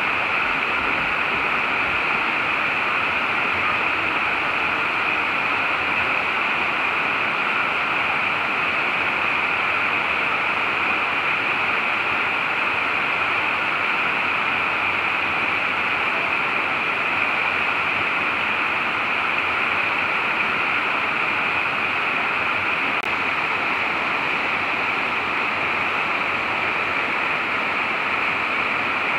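Steady, even rush of water sheeting down the sloping rock face of a slide-type waterfall.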